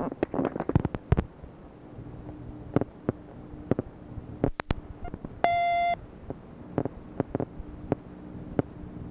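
Answering-machine message tape playing between messages: a run of clicks and pops on the phone line, thickest in the first second and scattered after, then a single half-second beep from the machine about five and a half seconds in, over a faint steady line hum.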